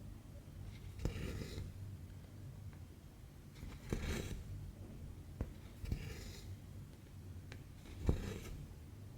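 Cross-stitch needle punching through 14-count fabric, each prick a small click followed by a short swish of floss being drawn through, repeating about every two seconds, four times.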